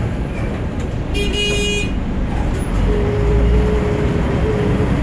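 Volvo bus under way, heard from inside near the front: a steady low engine rumble. About a second in comes a short, high-pitched beep lasting under a second, and a steady whine sets in near the middle.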